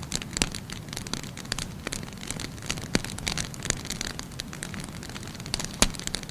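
Firewood burning in a bonfire, its flames making a steady low rumble with irregular sharp crackles and pops, the loudest pop near the end.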